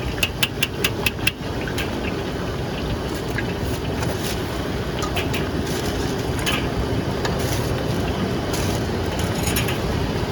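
A quick run of about seven sharp taps or clicks in the first second and a half, then a steady low rumble of market and crowd noise with scattered faint clicks.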